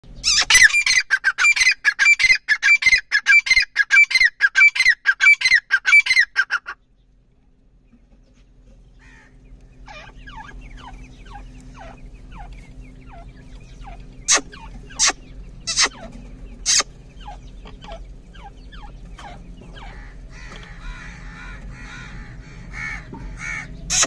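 Grey francolin calling loudly in a rapid series of repeated harsh notes, about four a second, which cuts off suddenly about seven seconds in. Then faint, thin peeping from francolin chicks over a steady low hum, with a few sharp clicks near the middle.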